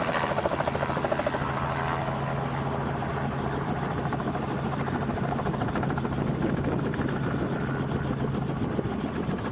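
Helicopter running with a steady, rapid rotor beat and a steady low engine tone that drops away near the end.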